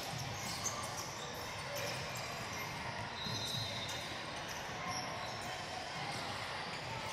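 Basketball game in a gym: a ball bouncing on the court over the steady background noise of the hall.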